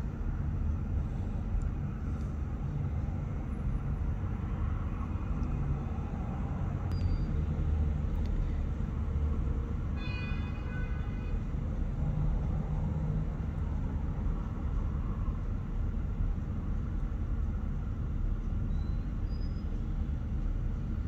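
Steady low background rumble, with a brief high-pitched squeal about halfway through.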